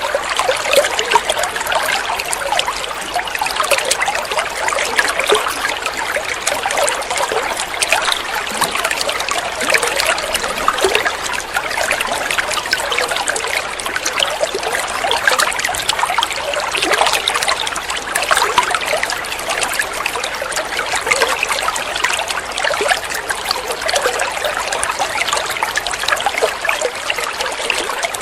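Water running and trickling steadily, a continuous babble of many small splashes.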